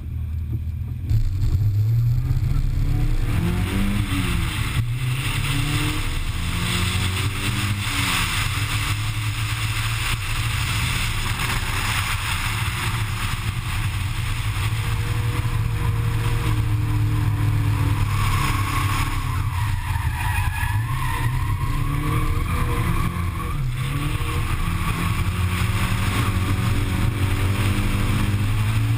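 Drift car's engine running hard under throttle, its pitch rising and falling again and again as the driver revs through the run. It gets much louder about a second in as the car pulls away.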